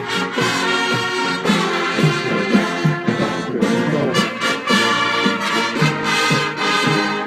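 High school marching band playing live, brass section to the fore with trombones and trumpets over a steady rhythmic beat.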